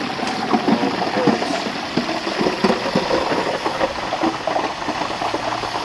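Turkey-fryer oil at 350 degrees bubbling and crackling hard as a whole turkey is lowered into the pot, over a steady rushing noise.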